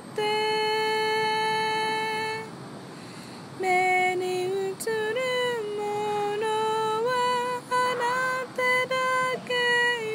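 A woman's voice singing unaccompanied. She holds one long steady note for about two and a half seconds, then, after a short pause, sings a melody of held notes that step up and down.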